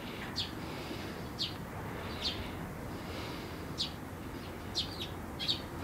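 A bird chirping, with about seven short, high chirps roughly a second apart, over a steady low background rumble.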